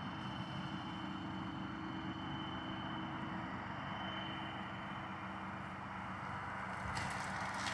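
Tractor engine running steadily, growing a little louder about seven seconds in.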